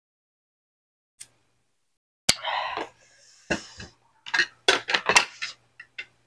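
Eating noises with mangrove clam shells and dishes: a sharp click about two seconds in with a short noisy burst after it, then a run of quick clicks and knocks in the second half.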